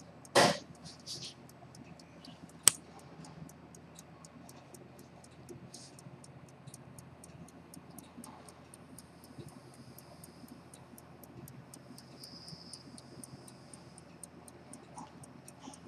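A fusee pocket watch ticking steadily at about five ticks a second, its movement running. About half a second in there is a brief louder rustle, and just under three seconds in a single sharp click.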